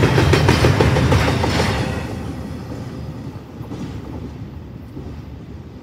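Double-stack intermodal freight train's last well cars rolling past, steel wheels clicking over the rail joints, then the rumble fading away about two seconds in as the end of the train goes by.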